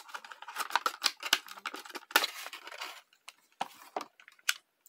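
Stiff clear plastic blister packaging crinkling and crackling as it is pulled away from a cardboard backing card. After about three seconds it thins to a few scattered clicks as the plastic tray holding the die-cast car is handled.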